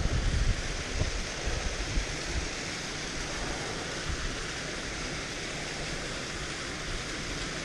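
Fast mountain stream cascading over rocks in small waterfalls, a steady rushing of water. A few low bumps sound in the first second or so.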